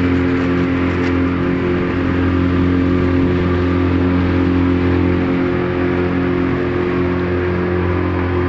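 Motorboat engine running at a steady cruising speed, one even drone with no change in pitch.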